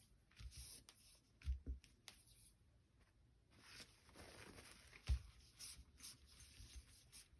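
Faint rustling and sliding of paper on a tabletop as paper pieces are handled and lined up, with a few soft taps.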